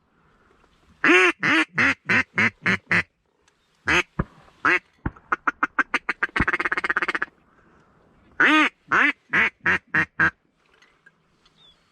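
Hand-blown mallard duck call working passing mallards: a string of about six loud hen-style quacks, a few more quacks, then a fast feed-call chatter near the middle, and a second string of about six quacks near the end.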